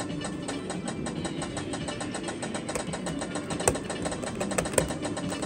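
Rapid, even ticking from the prize wheel on top of a fruit machine as it spins in its 'Spin To A Win' feature, with two louder clicks a little past the middle.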